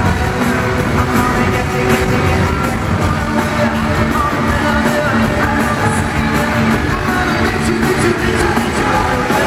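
Boy band singing a pop-rock song live with their backing band, recorded from the seats of an arena.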